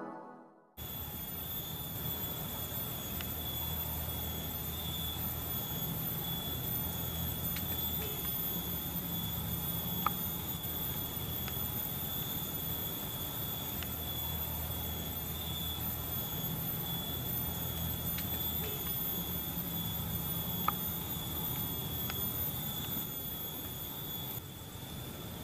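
Insects droning in a steady, shrill, high pitch, with a low rumble underneath and two faint ticks.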